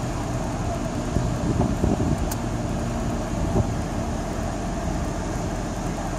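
Steady road traffic with a low engine hum, and a few louder knocks around two seconds in and again a little later.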